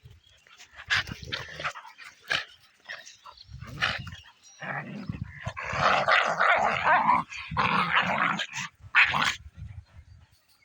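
Dog growling and barking in irregular bursts, busiest in the second half.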